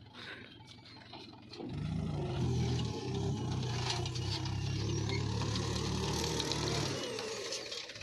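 Mahindra 475 DI tractor's diesel engine working under load as it pulls a trolley heavy with mud, with rattling over it. It comes up strongly about two seconds in and eases off near the end.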